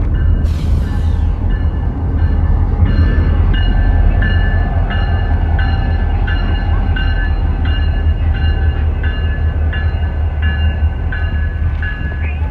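Railroad crossing bell ringing about twice a second over the low rumble of a Union Pacific GP-series diesel locomotive and freight cars rolling through the crossing. A short burst of static hiss sounds about half a second in.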